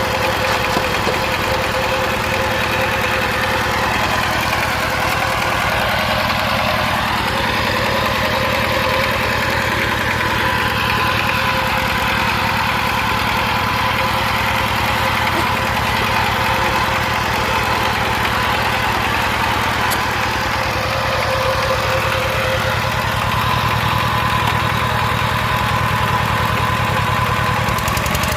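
Diesel tractor engine running steadily under load while pulling a plough, its pitch drifting slightly a couple of times.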